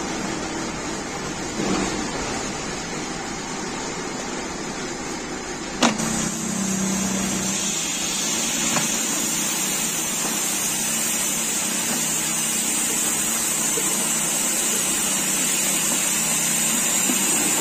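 Plastic moulding machine running steadily with a low hum, a single sharp clack about six seconds in, and a steady high hiss from then on.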